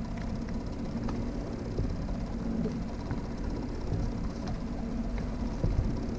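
Fishing boat's motor running steadily at trolling speed, a continuous low rumble with faint light ticks over it.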